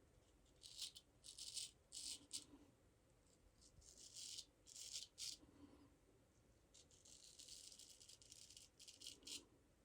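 Straight razor scraping through lathered stubble in a series of short, faint strokes, with one longer stroke near the end.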